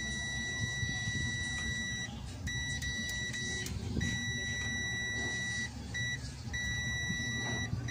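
Multimeter continuity beeper sounding a steady high tone in long stretches, cutting out briefly a few times as the probes make and break contact on the TV's AC power cord; the unbroken tone shows the cord has continuity and is not cut.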